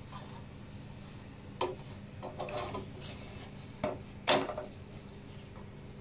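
Plastic slotted spatula knocking and scraping on a nonstick pan as a stuffed paratha is pressed and flipped over, with the loudest clatter about four seconds in as it turns. A steady low hum runs underneath.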